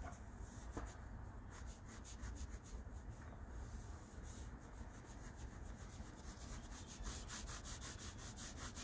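Colored pencil scratching across sketchbook paper in quick, short shading strokes, coming faster and closer together in the last couple of seconds.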